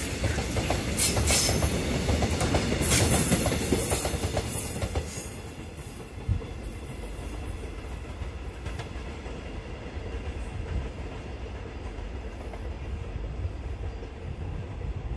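Oil tank wagons of a diesel-hauled freight train rolling past, wheels clacking and knocking over the rail joints. The sound is loud for about the first five seconds as the last wagons go by, then drops to a steady low rumble as the train moves away.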